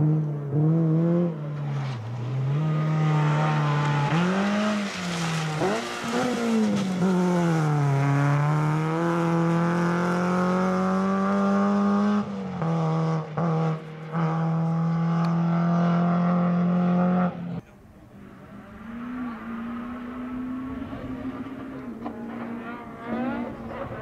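Renault Clio rally car's engine at full throttle on a gravel stage, revs climbing and dropping through the gear changes, with brief lifts of the throttle. About two-thirds of the way through it cuts off abruptly. A second rally car, a Citroën Saxo, follows, its engine quieter and more distant, revving up as it approaches.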